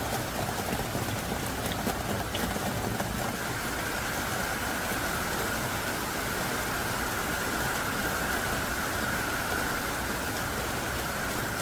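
Heavy rain pouring down in a steady, even hiss, with a few separate drops ticking now and then.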